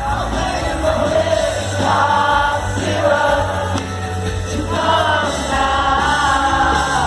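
Indie rock band playing live, with sustained sung vocal lines over a steady bass.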